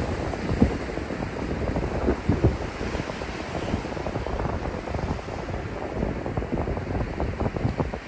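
Ocean surf breaking and washing up over flat wet sand, with wind buffeting the microphone in irregular gusts.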